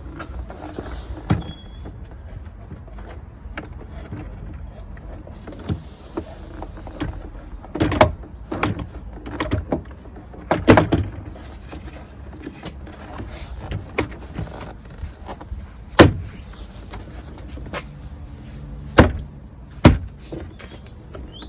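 Plastic door card and its trim clips being pressed and knocked into place on a car's rear door: a string of irregular sharp clicks and thumps, several of them loud, over a low background rumble.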